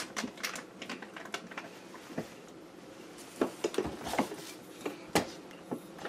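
Irregular clicks, knocks and light clatter of containers and shelves being handled inside an open refrigerator freezer compartment, with a sharper knock about five seconds in.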